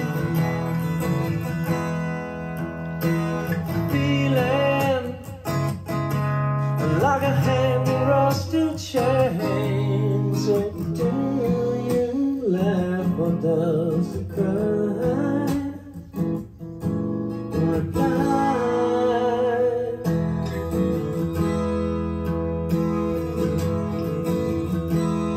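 Acoustic rock song played back from a type II cassette on an Aiwa AD-F990 deck: strummed acoustic guitar, with a voice singing over it from about four seconds in.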